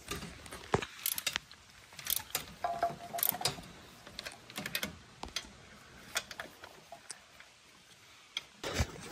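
Hand ratchet wrench clicking in short, irregular runs, with light metal clinks, as the exhaust manifold nuts are tightened.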